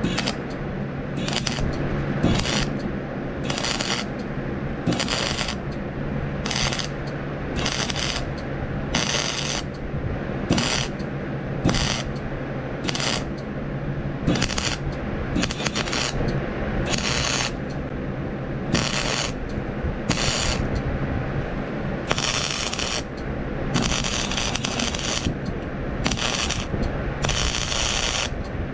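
Electric welder arc crackling in about two dozen short bursts, roughly one a second and longer near the end, as the holes and gaps in a metal rake's tines are filled with stitch welds. A steady low hum runs underneath.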